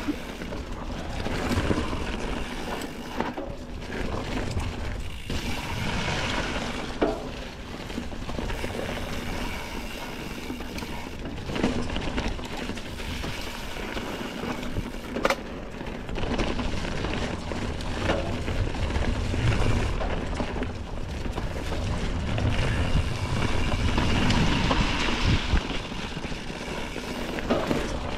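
Mountain bike riding noise: tyres rolling over leaf-covered dirt singletrack with a steady low rumble, and a few sharp knocks and rattles from the bike over bumps.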